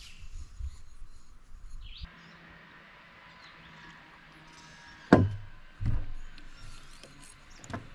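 Distant chainsaw running steadily as a faint hum from about two seconds in, with two sharp knocks about a second apart near the middle, the loudest sounds. Quieter handling clicks and rumble come at the start.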